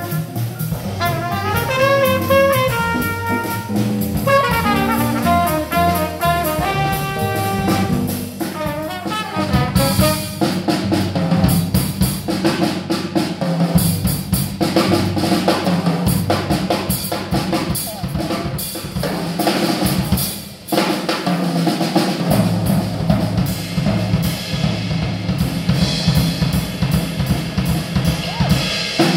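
Small jazz combo: saxophone and trumpet play a quick melodic line, then about ten seconds in the horns drop out and a drum kit solo takes over, busy snare, bass drum and cymbal strokes.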